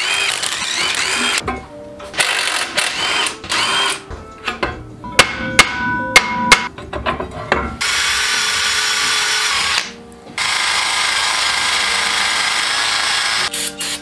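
Cordless drill-driver whirring in short bursts as it spins out the wheel bolts on a Mercedes 380SL's rear hub, with a few sharp metallic clinks of loosened parts. Then two long steady hisses of an aerosol spray can.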